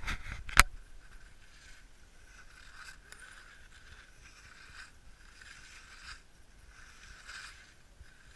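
Skis sliding and scraping over snow through a series of turns, a swish every second or so, with a sharp knock about half a second in.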